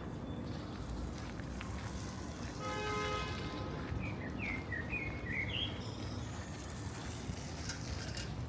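Outdoor city ambience with a steady low hum of distant traffic. A short pitched tone sounds about three seconds in, and a bird gives a quick series of chirps a little later.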